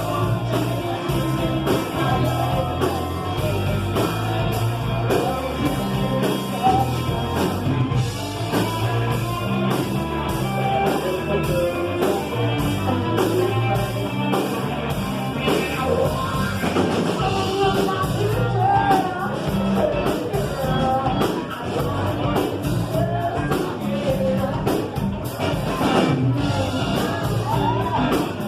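Rock song with a singing voice over a full band, with a steady beat and bass.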